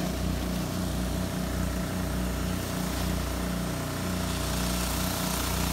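A small gasoline engine, most likely the highbanker's water pump, running steadily at constant speed with a slight regular pulse.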